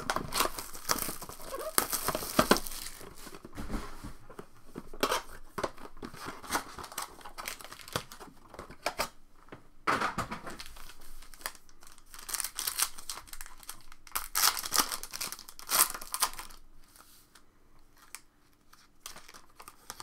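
Foil wrappers of Panini Elite Extra Edition baseball card packs and their box crinkling, rustling and tearing in irregular spells as the packs are handled and ripped open, quieter near the end.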